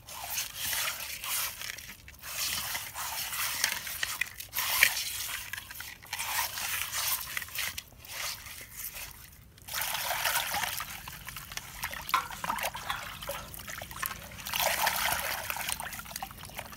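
Water sloshing and splashing in a clay pot as a hand rubs and turns carp pieces being washed with rock salt and turmeric. It comes in bursts with a few short pauses.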